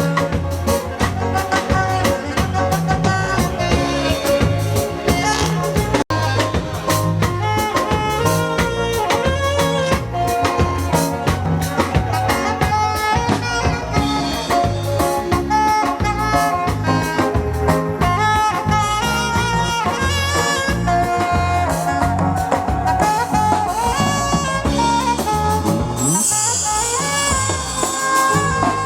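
A live band playing a song with a steady drum beat and melodic lead lines, as heard at a sound check. The sound cuts out for an instant about six seconds in.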